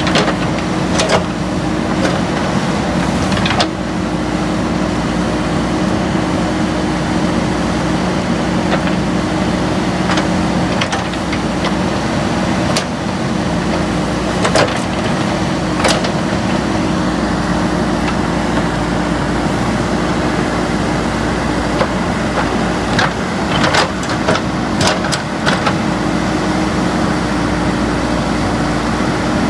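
JCB 3DX backhoe loader's diesel engine running at a steady speed, with scattered sharp knocks, several of them close together near the end.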